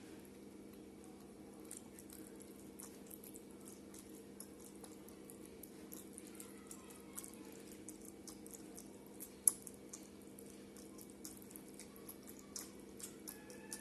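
Close, wet eating sounds: many small clicks and smacks of chewing rice and curry, one louder click about nine and a half seconds in, over a steady low hum.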